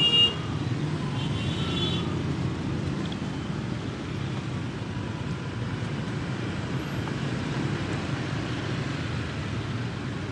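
Steady rumble of motorbike and car street traffic. A vehicle horn honks briefly at the very start, the loudest sound, and a fainter horn follows about a second and a half in.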